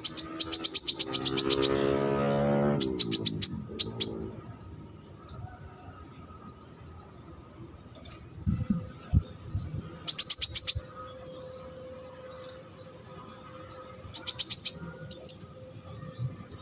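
Konin songbird singing in rapid bursts of sharp, high chirps, four bursts with pauses between them and a fainter trill after the second. A lower falling tone sounds under the first burst, and a faint steady high tone runs beneath.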